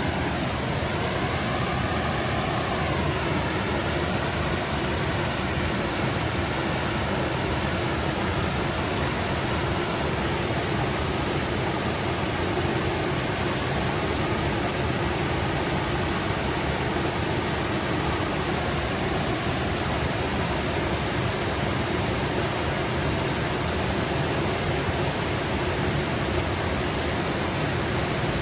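Forest brook babbling, a steady, even rush of running water over stones.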